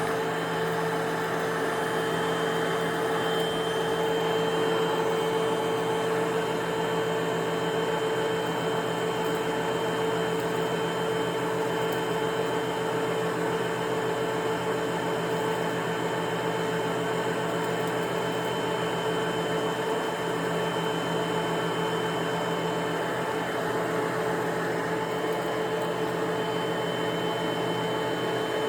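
Vacuum cleaner running steadily: a constant motor whine with a steady hum over the rush of air, unchanging throughout.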